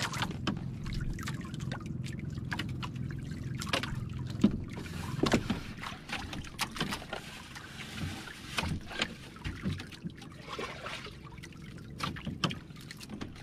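Water lapping against a small outrigger boat's hull, with scattered clicks and knocks of plastic food containers, a cup and utensils being handled. A low steady hum runs under the first half and fades about six seconds in.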